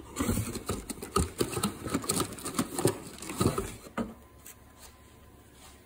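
Handling of a cardboard Manley valve spring box and a clear plastic parts tray: a quick, irregular run of clicks, taps and rustles that stops about four seconds in.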